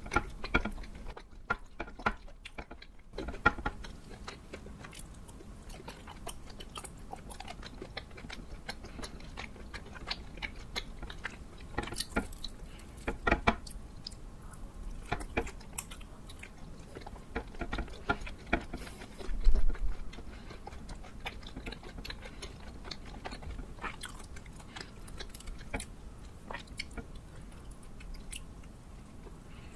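Close-miked chewing of soft, sticky chapssaltteok (Korean glutinous rice cakes with red bean, cream cheese and chocolate cream fillings): a steady run of short sticky mouth clicks and smacks, with one louder low bump about two-thirds of the way in.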